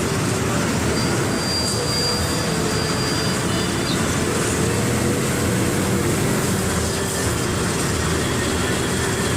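Mercedes-Benz OF 1721 BlueTec 5 city bus diesel engine running steadily, with a thin high whine that starts about a second in and lasts about three seconds.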